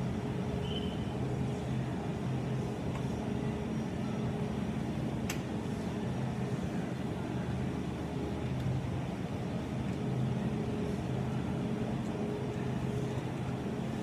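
Steady low hum of a supermarket's ventilation and refrigerated display cases, with a single sharp click about five seconds in.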